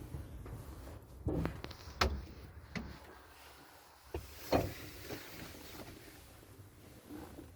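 A few separate clunks and knocks, the loudest about two and about four and a half seconds in, over a faint low rumble that fades after about three seconds.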